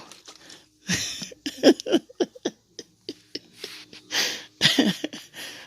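A string of short, breathy vocal bursts from a person, irregularly spaced, some with a brief falling pitch. They are not words.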